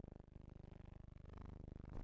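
Near silence: a faint steady low hum, with a single click near the end.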